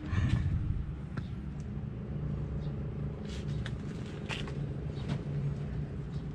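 Truck engine running steadily with a low hum, with a few sharp clicks and knocks over it.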